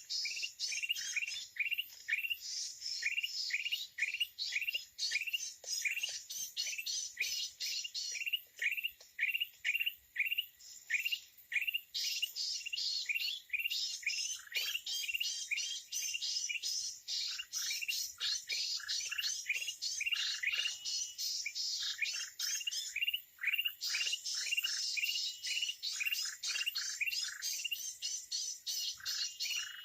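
Red-eyed bulbuls calling: a rapid, even series of short falling chirps, about three a second, over a dense chatter of many birds.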